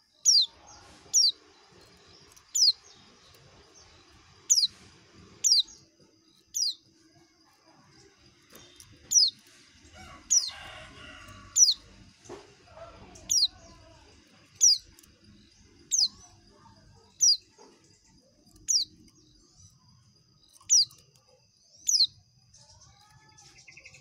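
Caged white-eye (pleci) repeating a sharp, high, downslurred call, about sixteen times at roughly one-and-a-half-second intervals, over a faint steady high twitter. A brief rustle of movement comes near the middle.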